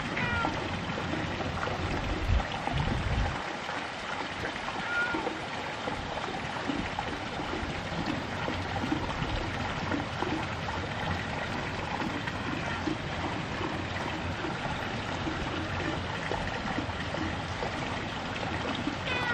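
Steady outdoor rush of running water, with a few faint short high chirps and a brief low thump about two seconds in.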